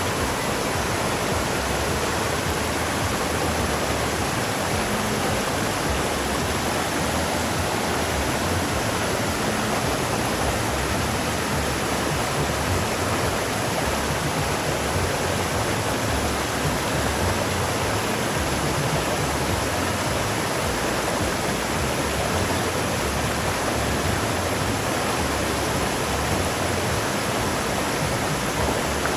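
River water rushing in a steady, even hiss, with no breaks or changes in level.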